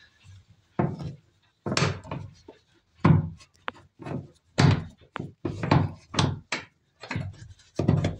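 Irregular dull knocks and thumps, one or two a second, in a small, boxy cabin.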